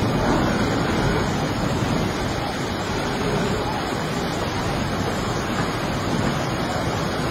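Steady rushing of a fast, swollen floodwater river churning past a bridge, with wind noise on the microphone.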